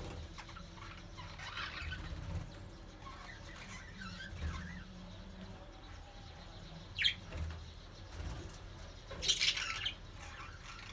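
Budgerigars chirping in scattered short, high calls, with a sharp single chirp about seven seconds in and a louder flurry of chatter about nine seconds in.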